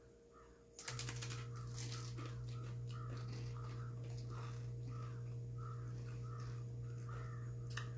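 Two people chewing crackers spread with raspberry jam, soft repeated crunching about twice a second. A steady low hum starts suddenly about a second in and continues under it.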